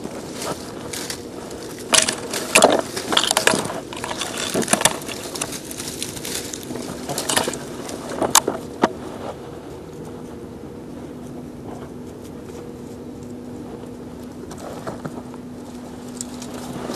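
Dry weed stalks crackling and snapping as they are grabbed and pulled by hand, in clusters of sharp crackles during the first half, then quieter with a few more near the end.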